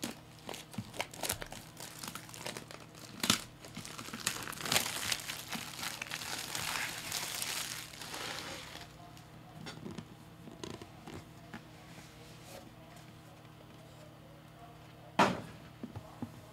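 Plastic shrink-wrap on a collectible box being slit and peeled off, crinkling and tearing for about nine seconds, then quieter handling and a single sharp knock near the end.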